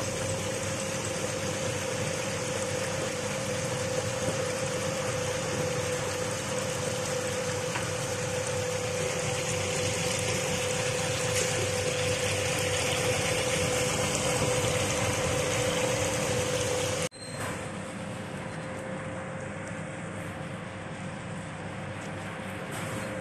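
Peanut skin peeling machine running wet, its motor giving a steady hum with a steady mid-pitched whine over the rush of water being poured in and churning with the peanuts. The sound drops abruptly to a quieter level about seventeen seconds in.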